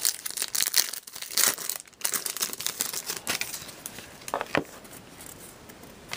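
A trading-card pack wrapper being torn open and crinkled by hand, with dense crackling for the first few seconds. It then settles into quieter handling of the cards, with a couple of short snaps.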